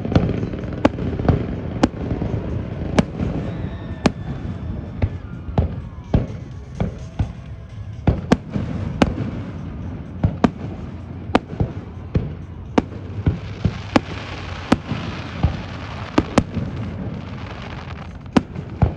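Aerial fireworks display: shells bursting in quick, irregular succession, dozens of sharp bangs over a continuous low rumble. A denser stretch of hiss comes about two-thirds of the way through.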